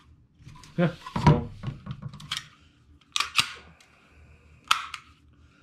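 Handling noise from a Kydex holster and an FN FNX-45 Tactical pistol: a scattered run of sharp clicks and knocks of hard plastic and metal as they are picked up, turned over and set down on a table.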